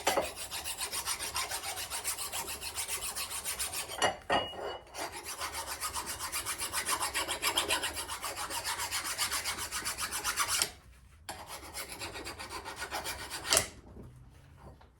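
Rusty old steel axe head being abraded by hand in rapid back-and-forth scraping strokes, about five a second. The strokes pause briefly about four seconds in and again near eleven seconds, and stop shortly before the end.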